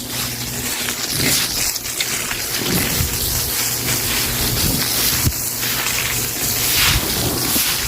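Stiff broom scrubbing a wet floor, bristles swishing through water in repeated strokes every second or two over a steady wet hiss.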